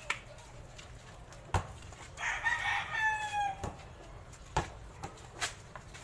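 A rooster crowing once, about two seconds in, with a few sharp thuds of a basketball bouncing on the concrete court.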